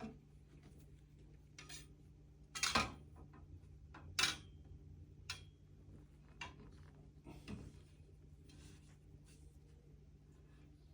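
Scattered clicks and clanks of the planter's metal frame rods and fittings being handled, with two louder knocks a few seconds in, over a low steady hum.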